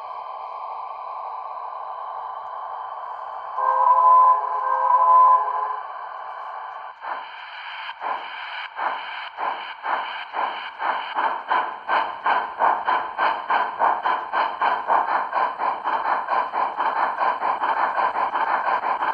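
Paragon 2 DCC sound decoder in a model rotary snow plow playing steam locomotive sounds through its small speaker. A steady hiss, then a whistle blown for about two seconds, then exhaust chuffs that start slowly and speed up to about four a second.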